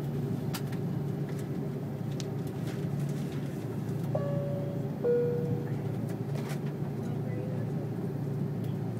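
Steady low hum inside an Airbus A330-300's cabin with faint clicks. About four seconds in comes a two-note cabin chime, the second note lower and louder.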